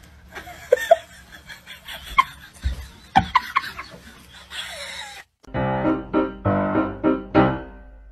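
A few short, quiet laughs over light background noise, then background music starts about five and a half seconds in.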